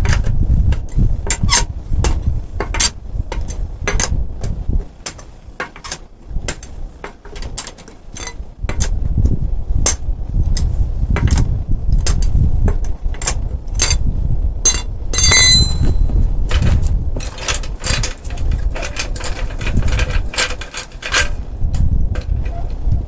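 Irregular metallic clicks and knocks of hand tools and metal parts being handled, with one ringing clink about fifteen seconds in, over a low wind rumble on the microphone.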